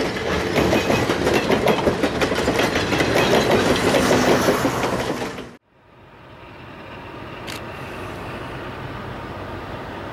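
A train passing close, its wheels clattering over the rail joints, cut off suddenly about five and a half seconds in. It is followed by a quieter, steady rumble from an approaching train that grows louder, with a single sharp click a couple of seconds later.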